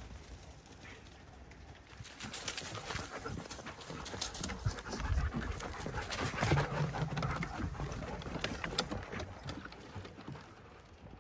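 German shepherds running and panting, with quick irregular footfalls on leaf litter and a wooden boardwalk.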